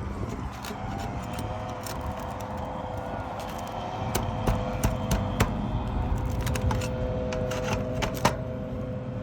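Clicks and scrapes of asphalt shingles being worked loose and peeled back to get at the roofing nails holding a roof vent, with a sharp snap near the end. A steady motor hum runs underneath.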